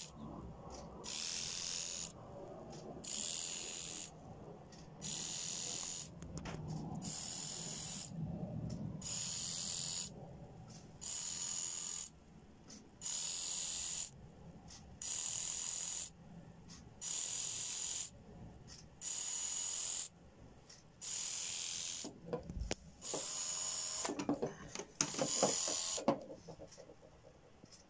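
Small brushed DC motor driven from an Arduino through an L293D motor driver shield, whirring in bursts of about a second, switching on and off every two seconds. Some handling noise near the end.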